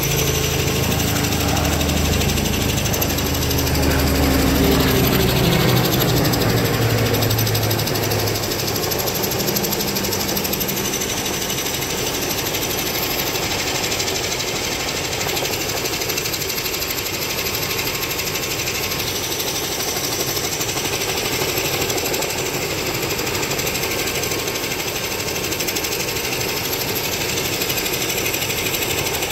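Helicopter rotor chopping in a rapid, continuous pulsing beat, loudest and deepest for about the first eight seconds, then steadier and a little quieter.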